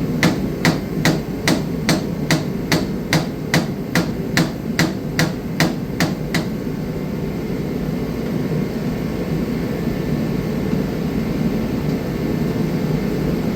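A run of evenly spaced sharp knocks, about two and a half a second, that stops about six seconds in, over a steady low hum.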